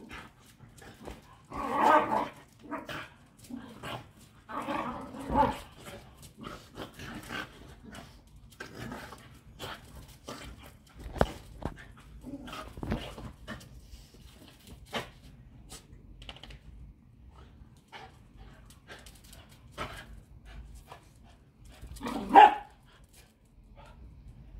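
Two Patterdale terriers play-fighting, barking and yapping in bursts, with the loudest bark near the end.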